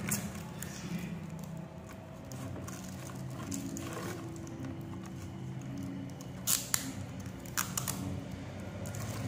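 Small handling clicks and rustles of hands winding ribbon and thread around a bangle, with a few sharper clicks past the middle, over a low background murmur.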